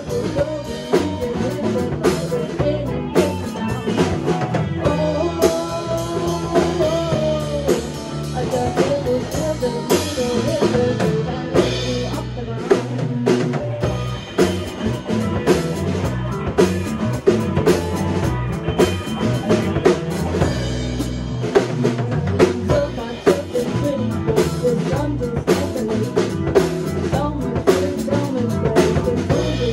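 Live rock band playing a song: a woman singing lead over electric guitars and a drum kit.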